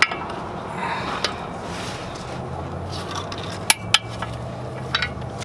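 Torque wrench and socket working the clutch pressure plate bolts: light metallic clinks, with two sharp clicks a quarter of a second apart past the middle as a bolt is torqued down.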